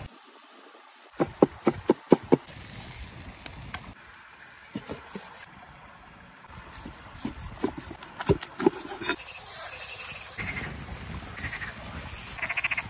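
Sharp taps and knocks of beef being handled on a stone slab and a wooden cutting board, then a steady hiss of meat slices searing on the fire-heated stone.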